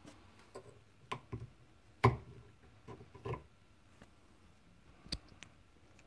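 Scattered clicks and knocks of plastic spray-nozzle caps being handled and unclipped from a metal spray bar, the loudest about two seconds in.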